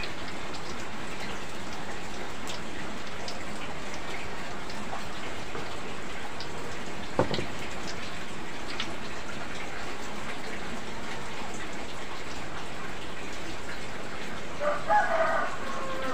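Steady hiss of heavy rain, with a single sharp knock about seven seconds in and a chicken clucking briefly near the end.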